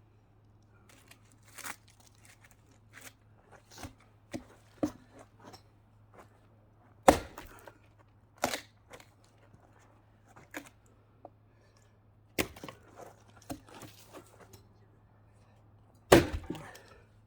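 Axe chopping into partly sawn logs to split firewood: irregular sharp strikes and knocks of wood, with two heavy blows about seven and sixteen seconds in and lighter hits between.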